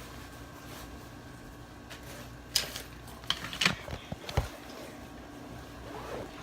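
A handful of sharp clicks and knocks come in a cluster from about two and a half to four and a half seconds in, over a steady low hum.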